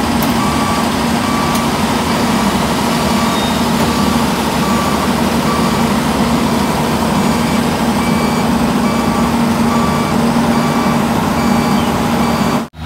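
Steady machinery drone from a mobile rail welding machine's power unit, with a high electronic warning beep repeating at regular intervals.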